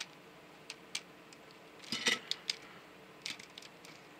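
Plastic parts of a Transformers action figure clicking and clattering as it is handled and transformed: scattered light clicks, with a small cluster of louder ones about two seconds in.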